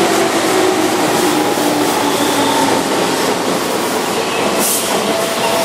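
A Keihan 13000-series electric commuter train running along the platform. Thin motor whines slide in pitch over the rumble of wheels on rail, and a brief hiss comes near the end.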